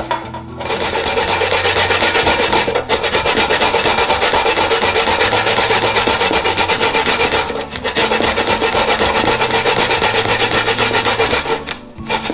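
Coconut flesh being grated on a metal box grater over a steel bowl: rapid, even rasping strokes, starting about half a second in, pausing briefly twice and stopping near the end.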